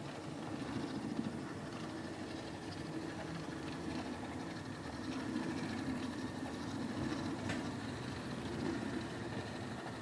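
OO gauge model Class 25 locomotive's small electric motor running steadily, hauling two Mk1 coaches along the track.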